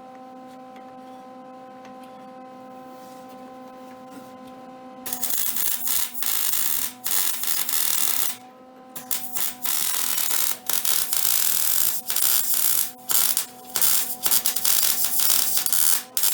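A steady low electrical hum, then about five seconds in a wire-feed (MIG) welder's arc strikes and crackles loudly in stretches of one to three seconds with short stops between beads.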